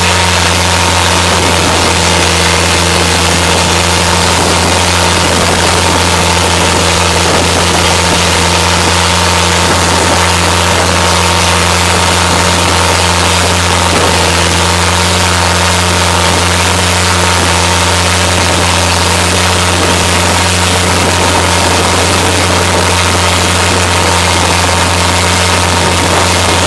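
Boat engine running steadily at speed, a constant low drone, under an even rush of wind and spray noise.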